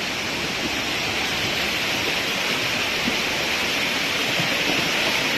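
A torrent of floodwater, from a burst water main, rushing down a street: a steady, loud rush of water.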